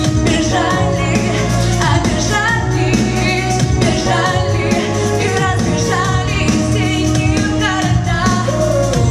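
Pop song with a woman singing over a backing track with a steady bass.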